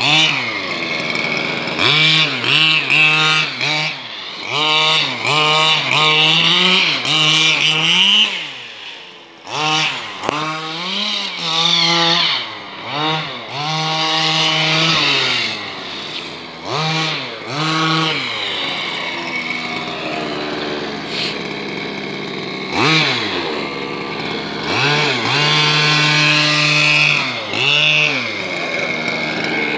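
Small two-stroke engine of a petrol-powered remote-control buggy, revved hard in short throttle bursts, its high buzzing pitch rising and falling again and again as the car accelerates and slows.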